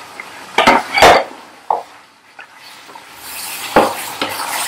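A spatula knocking and scraping against a non-stick pot as raw chicken pieces are turned over in spice paste: a few sharp knocks, the loudest about a second in, with a hiss in the last second or so.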